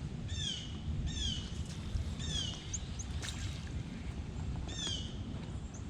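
A bird calling: short high calls that slide sharply downward in pitch, about four of them with a few small chirps between, over a low steady rumble.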